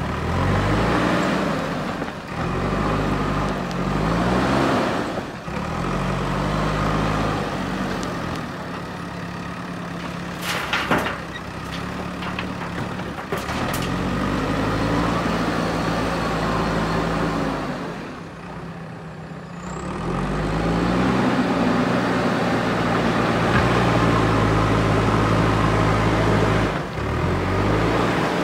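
JCB 4x4 backhoe loader's diesel engine revving up and down repeatedly as the machine works gravel, with a few sharp metallic clanks near the middle and a brief quieter stretch about two-thirds through.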